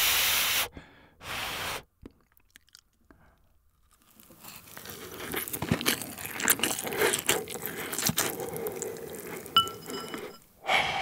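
Two short breathy puffs, then close-miked chewing of a mouthful of rice and grilled cheese Spam: a dense run of wet squishes and small clicks. It ends with another breathy huff from a mouth that is too hot, because the Spam is very hot.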